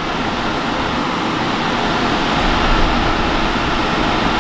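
Portable air conditioner running on high fan, a steady rush of air from its outlet vents, with a low rumble building slightly a little past halfway.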